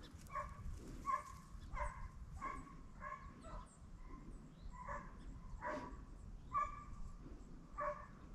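A deer hound barking faintly, about ten barks of the same pitch in a loose repeated series, some a little drawn out. It is a hound giving voice as it works a deer during a dog drive.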